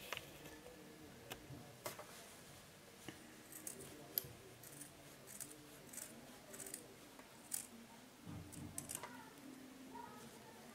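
Scissors snipping through fabric, trimming the seam allowance of a sewn corner: faint, scattered snips with cloth rustling between them.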